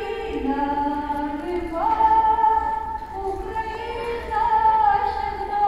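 Female voices singing in parts, holding long notes that step up and down from one pitch to the next.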